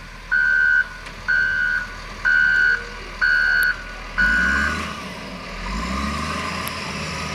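Reversing alarm on a large snow-removal tractor, a steady beep about once a second, five times, then stopping. The tractor's engine then revs up twice.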